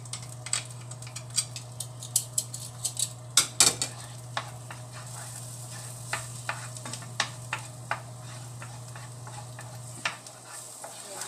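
Chopped garlic sizzling in butter in a frying pan while a wooden spatula stirs it, knocking and scraping against the pan many times. The knocks come thickest in the first few seconds and thin out after.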